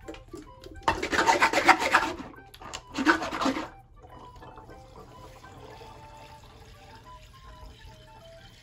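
Water swirled hard inside a plastic water bottle joined to a second bottle by a tornado tube, two loud sloshing bursts about a second in and around three seconds, to start the vortex that drains it. After that only faint background music.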